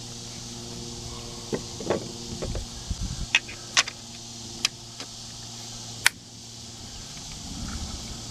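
A JW 2000 12-gauge double-barrel coach gun being put together: its fore-end fitted and latched onto the barrels, making a string of sharp metal clicks and knocks with a few dull thumps, the loudest click about six seconds in.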